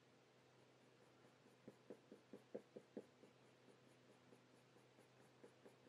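Faint scratching of a Faber-Castell Polychromos coloured pencil on hot-press watercolour paper. The pencil makes a quick run of short strokes, about four a second, starting under two seconds in, then lighter strokes after.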